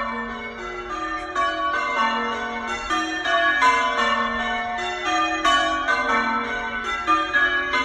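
Church bells being rung from the tower in a continuous, rapid sequence of strikes at different pitches, each note ringing on into the next, in the manner of English change ringing.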